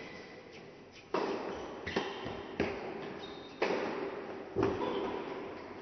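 A tennis rally on an indoor court: five sharp knocks of racket strings hitting the ball and the ball bouncing, spaced a little under a second apart, each ringing out briefly in the hall's echo.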